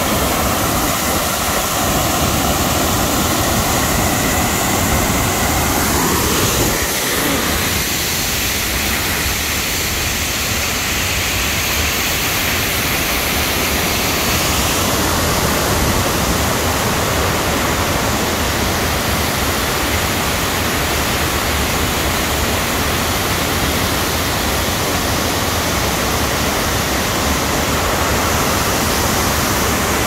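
Waterfall and raging river: a loud, steady rush of fast-flowing white water.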